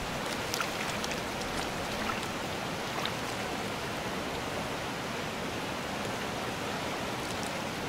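Fast mountain river running over rocks in steady rapids, with a few faint clicks in the first few seconds.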